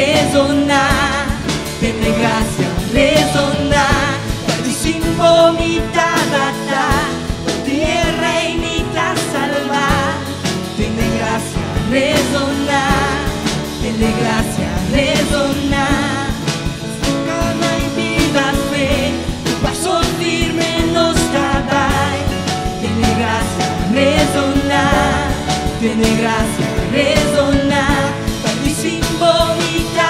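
Worship band performing live: singers in Papiamentu, with vibrato on held notes, over acoustic guitar, keyboard and a steady drum beat.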